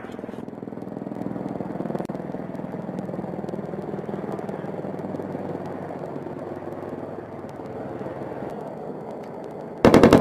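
Steady rotor and engine noise of an attack helicopter in flight, then near the end a loud burst of rapid automatic gunfire breaks in.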